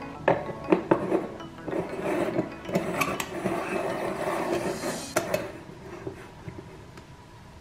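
Kitchenware clattering while coffee is made: cups, spoons and pots clinking and knocking, with several sharp knocks in the first second and around the middle, quietening near the end.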